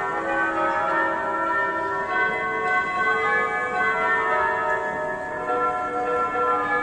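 Bells ringing without a break, many notes of different pitch struck in turn and overlapping as they ring on.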